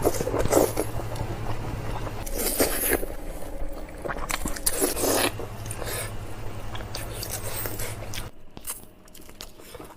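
Close-miked eating sounds: crunchy bites and chewing of food, with about three louder crunches spread through the first five seconds and softer chewing after. A steady low hum runs underneath.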